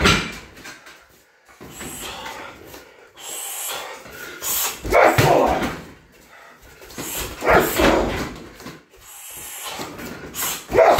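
Shin kicks landing on a 60 kg heavy bag hung from a freestanding stand, one loud strike every two to three seconds.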